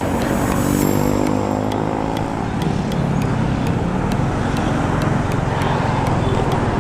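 A road vehicle's engine running while driving: a steady drone whose engine note shifts in pitch during the first couple of seconds, then holds.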